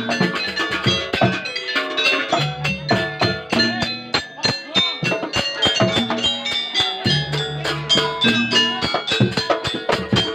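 Live band music: an instrumental passage with busy, rapid hand-drum strokes over bass and melody lines.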